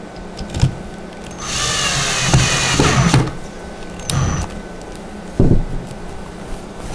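Cordless drill driving a screw into a wooden panel. The motor runs for about two seconds, then gives a brief second burst about a second later. A few knocks come with it, and a louder thump near the end.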